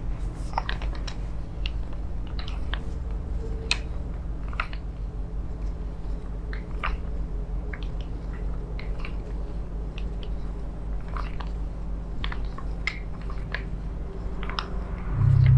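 Close-up massage contact noises: scattered sharp clicks and crackles as hands and a wooden massage tool work the neck and shoulders, over a steady low hum. A brief low bump near the end.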